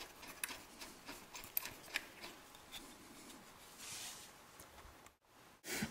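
Faint scattered metallic clicks and light rubbing as a washer and nut are fitted by hand onto the caliper mounting bolt of a Yamaha RD400's rear disc brake. The sound drops out briefly near the end.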